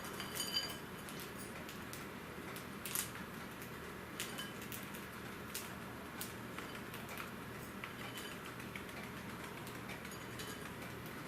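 Sparse light taps and clicks, about one every second or so, of cockatiels' beaks and feet on a hard surface, over a faint steady hum.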